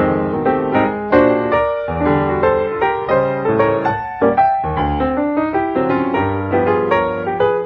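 Piano music: a flowing melody of struck notes that ring and fade, a few notes a second.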